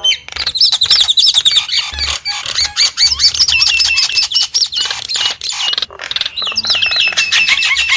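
Nias starling singing loudly: a fast, unbroken chatter of quick whistled notes that swoop up and down, mixed with harsh clicks and squawky notes, with a brief pause about six seconds in.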